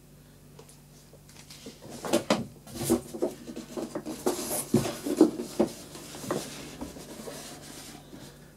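Handling noises: a string of knocks, rubs and rustles over about five seconds, the loudest knocks in the middle, over a faint steady hum.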